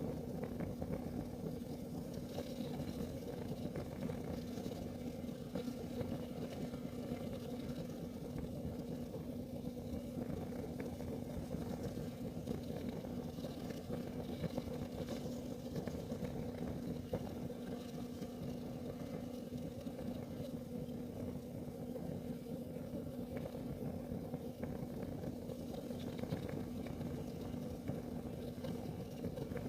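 Kerosene heater burning with a steady low hum, with a few faint ticks here and there.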